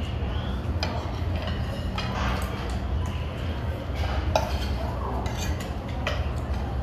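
Knife and fork scraping and clinking against a plate while cutting a cheese-filled pork cutlet, several sharp clinks scattered through. A steady low hum runs underneath.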